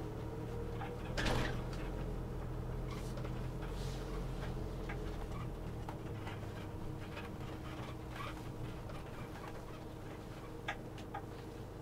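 Steady low hum of a Ford Transit-based motorhome rolling slowly at low speed, heard from inside the cab, with a few short clicks along the way, the strongest about a second in.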